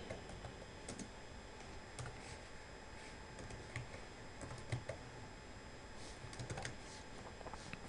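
Faint typing on a computer keyboard: slow, irregular key clicks.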